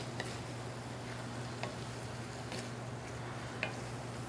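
Pork, celery and bell pepper stir-frying in a stainless steel pan with a faint sizzle, stirred with a wooden spatula that clicks lightly against the pan four or five times, over a steady low hum.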